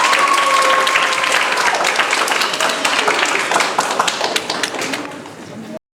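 Audience applauding, many hands clapping with a few voices calling out over it. The clapping thins out and then cuts off suddenly near the end.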